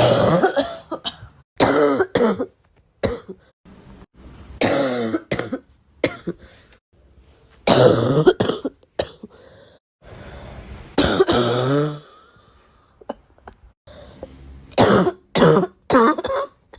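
A person coughing over and over in short fits of one to three coughs, many of them voiced with a falling pitch, with brief quiet gaps between fits.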